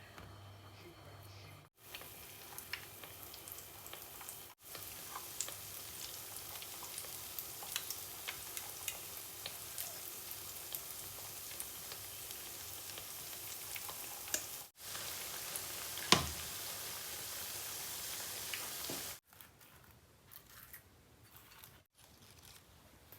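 Food frying in a hot pan: a steady sizzle dotted with sharp crackles, broken off abruptly several times, with one louder crack about two-thirds of the way through. Near the end the sizzle stops and only faint, quiet sounds remain.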